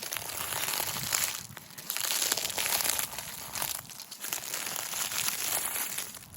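Dry forest litter crunching and crackling in uneven stretches, with short pauses between.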